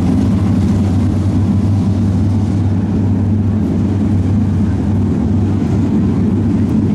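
Pro Stock dirt-track stock car engines running steadily at low speed as the field rolls out, a loud, even, low engine drone.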